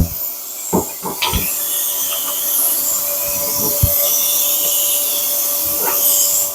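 Steady, hissing metalworking noise from a power tool working on a rusted steel car frame, with a few short knocks in the first few seconds. It cuts off suddenly near the end.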